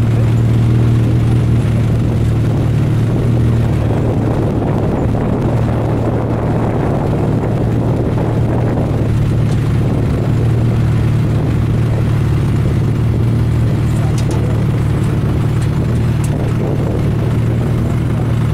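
Flatbed tow truck's engine running steadily to drive the hydraulics that tilt the bed, a constant low hum.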